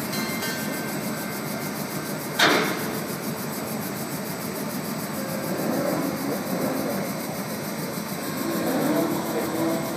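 Panama Canal electric towing locomotive (mule) running along its track on the lock wall: a steady mechanical rumble, with one sharp knock about two and a half seconds in.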